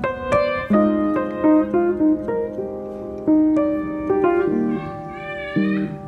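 Background piano music, with notes struck one after another over held chords. Near the end there is a brief wavering high sound.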